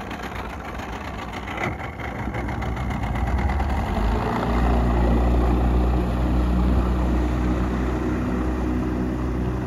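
Bass boat's Tracker outboard motor idling, then throttled up a few seconds in and running steadily under load as the boat pulls away.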